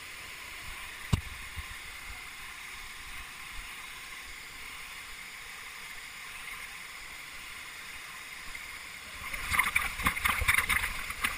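Steady rush of water from a stream or waterfall, with a single sharp click about a second in. A little after nine seconds in, a louder crackling, splashy noise takes over for about two seconds.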